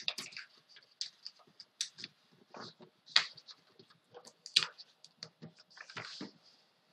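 Hands handling paper and felt-tip markers on a tabletop: scattered light clicks and taps with short paper rustles, the sharpest clicks about three and four and a half seconds in and a longer rustle around six seconds.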